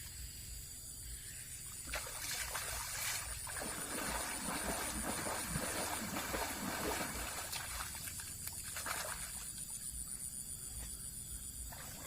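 Water splashing and sloshing from about two seconds in until about nine seconds, loudest in the middle, as a plastic-bottle fish trap is shaken in the water. A steady high-pitched whine runs underneath.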